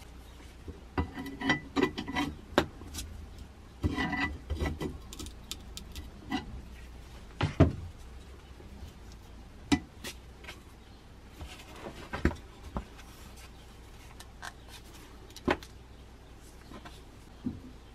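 A rusty steel cleaver and its loose wooden handle scale being handled on a table: scattered taps, knocks and rubs of wood and metal, busiest in the first five seconds, with the loudest knock about seven and a half seconds in.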